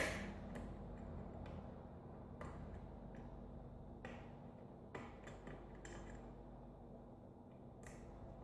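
Faint, scattered metallic clicks and ticks of a lock pick and tension wrench working the pins of a Sargent five-pin mortise lock cylinder during single pin picking, with a sharper click right at the start.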